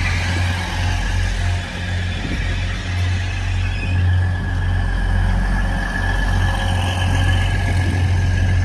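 Grand Central Class 180 diesel multiple unit's underfloor diesel engines running with a steady low hum as the train moves slowly along the platform. A faint high tone is held through the middle.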